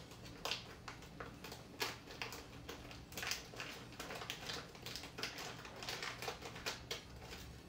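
Clear plastic bag of dried noodles crinkling as it is handled and pulled open: a faint, irregular run of short crackles and rustles.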